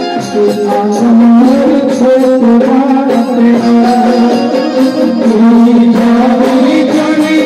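Live Indian devotional folk music: a harmonium playing held notes under a man's singing voice, with a steady percussion beat.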